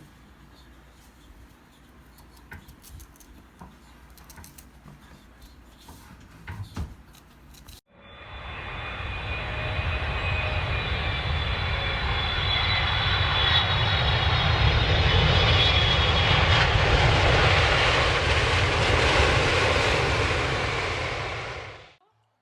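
Jet airliner engines at high power, swelling over a couple of seconds into a loud, steady noise with a high whine on top, then cutting off abruptly. Before it come only faint clicks and knocks.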